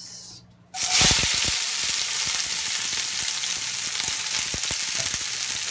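Sliced peppers, red onion and garlic dropped into hot oil in a stainless steel skillet: a loud sizzle starts suddenly under a second in and carries on steadily, with a few light knocks as the vegetables land and are moved about.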